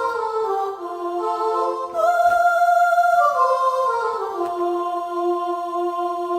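Yamaha PSR-550 electronic keyboard playing slow sustained chords that step downward in pitch, with a fresh higher chord about two seconds in and a long held chord near the end.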